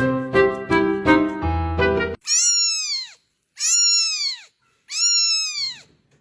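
Keyboard music with a quick run of notes cuts off about two seconds in, then a cat meows three times in a row, each meow a long call that rises and then falls in pitch.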